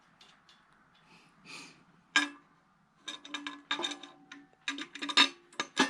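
Hand tools clicking and clinking on metal: a few scattered clicks, then a busy run of quick clicks and clanks from about halfway in, as a wrench works a nut on an LS engine's oil pickup tube.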